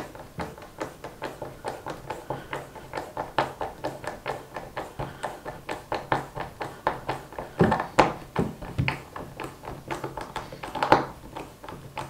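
Small hand screwdriver turning brass screws through a brass butt hinge into a softwood block: a quick, even run of clicks, about four a second, with a couple of louder knocks about two-thirds through and again near the end.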